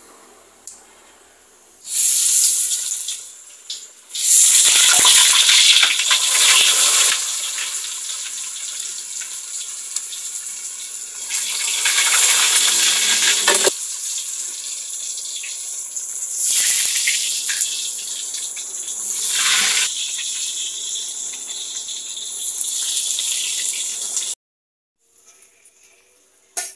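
Boiled cassava pieces going into hot oil in a wok, the oil sizzling loudly in repeated surges as each batch goes in. The sizzling stops abruptly near the end.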